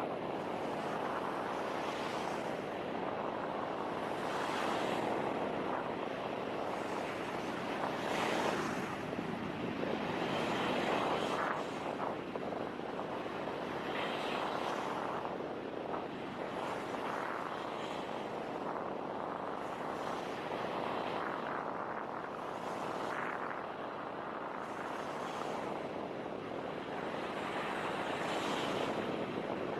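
Ocean surf washing onto a beach: a steady rushing noise that swells and eases every few seconds.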